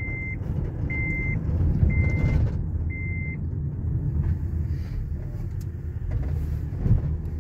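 Vehicle running with a steady low rumble, heard from inside the cab, while an electronic warning beeper gives short high beeps about once a second, four times, then stops.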